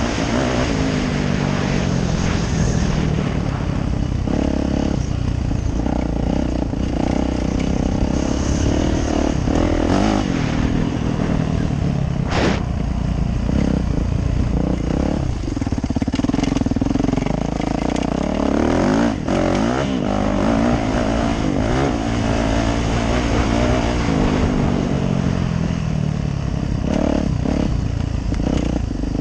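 Yamaha YZ450F's single-cylinder four-stroke engine revving up and down as the dirt bike is ridden along a track, its pitch rising and falling with each burst of throttle and each gear change. There are two sharp knocks, about twelve and nineteen seconds in.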